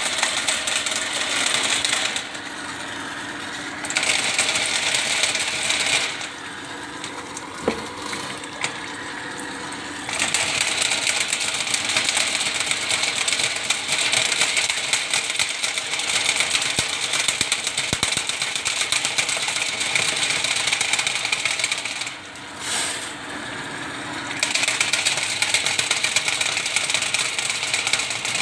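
Ridgid drain-cleaning machine spinning its coiled steel cable through a drain line to clear a blockage, a continuous metallic rattling whir. Three times it turns quieter and duller for a few seconds: about two seconds in, around six to ten seconds, and again past twenty-two seconds.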